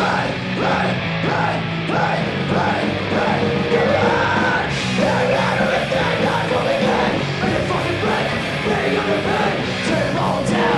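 Live punk rock band playing, with shouted vocals over electric guitars.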